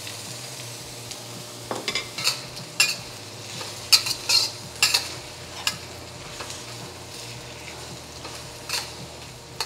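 Chopped onion, ginger, garlic and green-onion whites sizzling in hot oil in a carbon steel wok. A spatula scrapes and knocks against the wok in a run of quick stir-fry strokes through the middle, with one more near the end.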